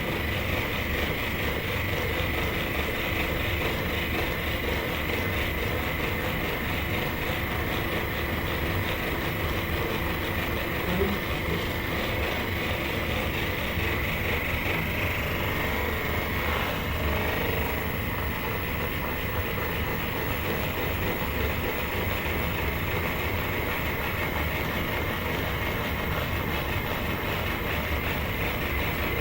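A small motor running steadily with an even buzzing rumble.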